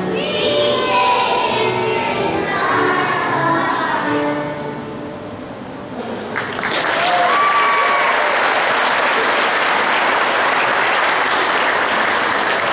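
Music with singing plays for the dancers and fades out about five seconds in. About six seconds in, an audience breaks into applause that carries on steadily to the end.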